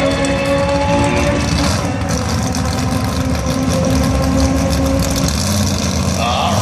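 Race car engine idling at a steady pitch; the note shifts lower about five seconds in.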